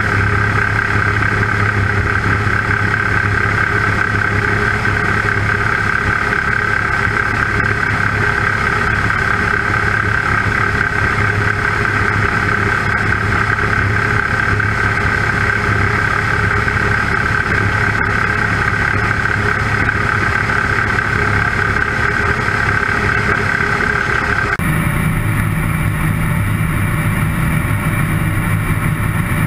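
Single-engine propeller drone of an Avian Adventurer homebuilt light aircraft in steady flight, mixed with the rush of air over the airframe. About 24 seconds in, the drone changes tone abruptly and then holds steady again.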